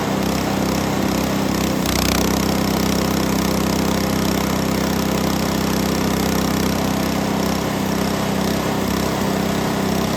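Small gasoline engine of a Frontier OS18 portable bandsaw mill running steadily at working speed, with the band blade sawing a hardwood branch into boards.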